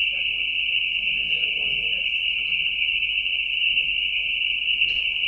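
A steady, high-pitched hiss that does not change, with a faint murmur of voices underneath.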